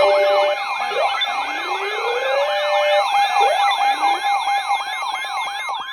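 Layered electronic sirens: a fast yelp sweeping up and down about four times a second over a steady tone, with slower rising wails starting underneath.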